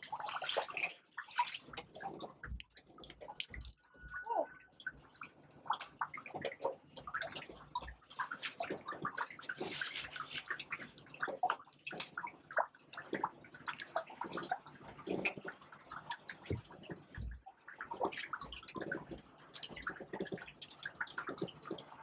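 Marina water splashing and dripping in small, irregular splashes. Near the start, water drains from a landing net just lifted out of the water.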